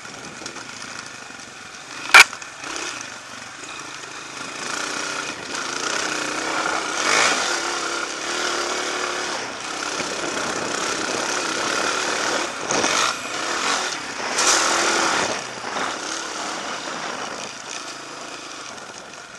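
Off-road motorcycle engine heard from on the moving bike, the throttle opened and closed so the engine rises and falls in several surges. A single sharp knock about two seconds in is the loudest sound.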